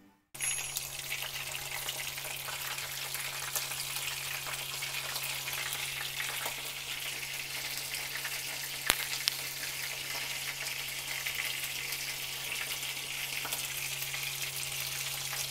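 Potato-starch-coated chicken thigh pieces shallow-frying in a little oil in a frying pan: a steady sizzle with fine crackling over a low hum, and one sharp click about nine seconds in.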